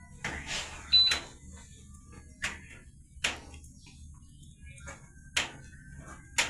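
A series of sharp, irregular clicks and knocks, about one a second, over a low steady hum, with a short rustle in the first second.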